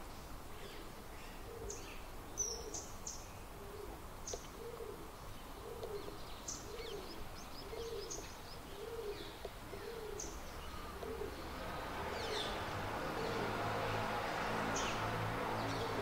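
Short, thin high calls of common kingfisher fledglings, scattered through, over a dove's low cooing repeated about every half second. From about twelve seconds in, a rushing noise with a low hum grows louder and becomes the loudest sound.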